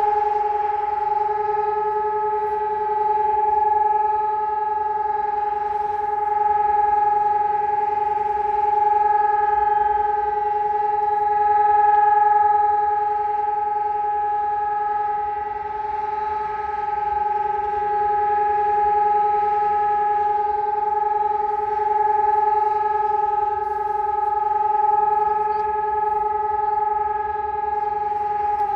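Civil-defence sirens, a SiRcom ESp 750 Maestro electronic siren together with a DS 977 siren, sounding one continuous steady tone that swells gently in loudness. This unbroken single pitch is the Czech siren-test signal, not a rising-and-falling alarm.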